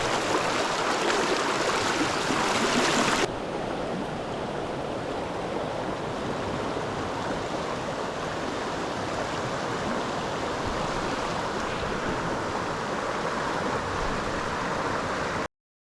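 Stream water rushing over a riffle, a steady hiss. It drops suddenly in level about three seconds in, and the sound cuts off completely just before the end.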